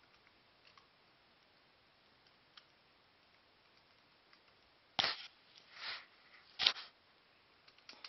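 Faint, scattered clicks from a laptop keyboard and touchpad. About five seconds in there is a sudden loud knock, then a short rustle, then a second, louder knock, with handling noise close to the microphone.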